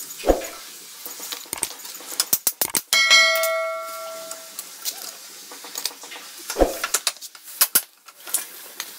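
Metal tools and parts clinking and clanking as a Honda Super Cub's rear wheel is unbolted and pulled out. One clang about three seconds in rings on for about a second and a half, and two dull knocks come near the start and about two-thirds of the way through.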